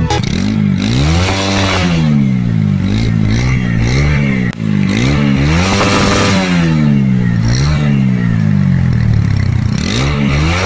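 Single-cylinder 160 cc motorcycle engine being revved in repeated throttle blips, about eight times, the pitch rising and dropping back each time.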